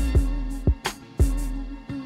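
Background hip hop beat: punchy drum hits about every half second to three-quarters of a second, each with a deep bass boom, under a held melodic line.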